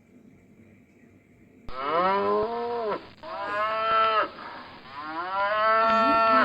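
Cow mooing three times in long, drawn-out calls, starting after a quiet second and a half.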